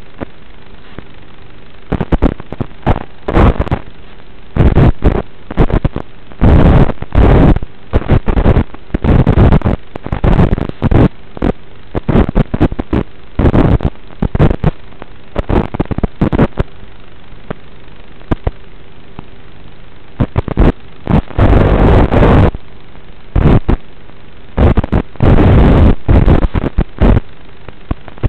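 Onboard audio of an FPV quadcopter: a steady hiss broken by many loud, distorted bursts of motor and propeller noise as the throttle is punched to full. The bursts last from half a second to about two seconds, with a spell of plain hiss a little past the middle.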